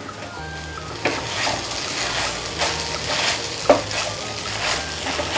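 Sago pearls and grated potato being stirred and turned with a spatula in a frying pan over a soft sizzle, in repeated scraping strokes from about a second in. A sharper knock of the spatula on the pan comes about two-thirds of the way through.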